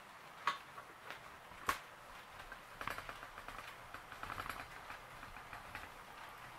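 HO-scale model train running on the layout track: a few sharp clicks, then from about three seconds in a quick run of light clicks and rattles as the wheels roll over rail joints and points.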